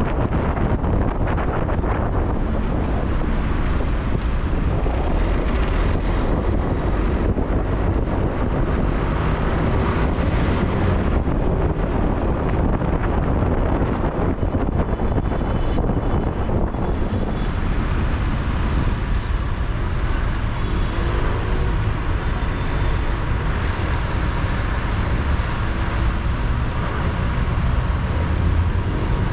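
Steady road and engine noise of a vehicle driving through city traffic.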